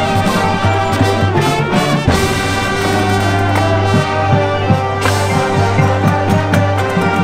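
Marching band playing live: the brass section holds sustained chords over drum and front-ensemble percussion hits.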